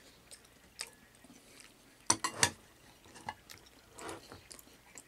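Eating with chopsticks: sharp clicks of wooden chopsticks against a plate and bowl, with chewing mouth noises. The loudest is a quick cluster of clicks about two seconds in.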